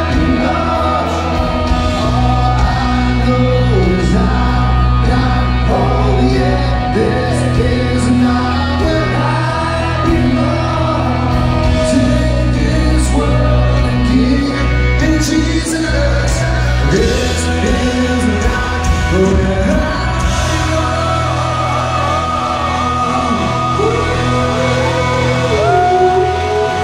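Loud live rock band music with a sung lead vocal over a heavy, steady bass, heard from within the audience in a large hall.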